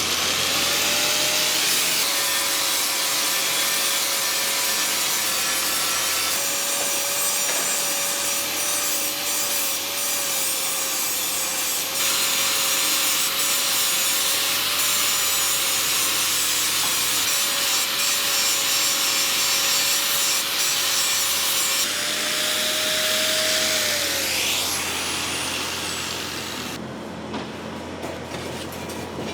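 Fiber laser welding machine running: a steady loud hiss with a wavering whine under it, which rises briefly and then glides down and dies away near the end.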